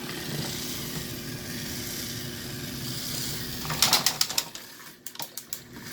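Battery-powered toy train engine running along plastic track with a steady motor whir. A burst of clicking and clattering comes about two-thirds of the way in, followed by a few lighter clicks.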